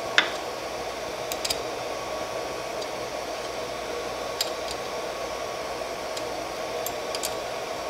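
3D printer's cooling fan running steadily with a faint whine, while a wrench unscrews the hot brass nozzle from the heater block, giving a few faint metal clicks.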